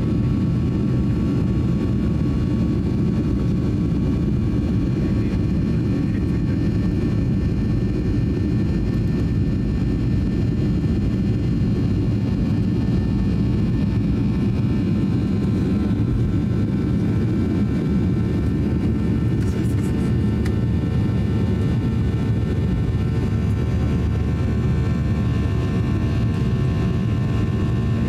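Cabin noise of a Boeing 737-800 on its takeoff roll: its CFM56 jet engines run steadily at takeoff thrust, with a steady whine over a heavy rumble from the wheels on the runway. The low rumble eases in the second half as the aircraft lifts off and climbs.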